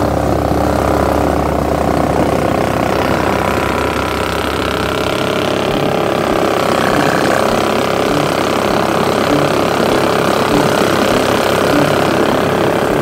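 Predator 420cc single-cylinder engine powering a Mud-Skipper surface-drive mud motor, running steadily under load as the boat moves, easing off slightly about four seconds in.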